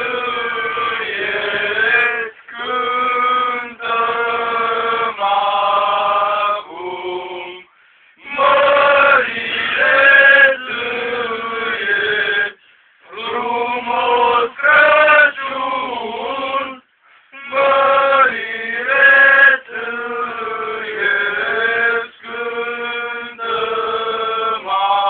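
A group of voices singing a Christmas carol from the Viflaim nativity folk play, in sung phrases a few seconds long with short breaks between them.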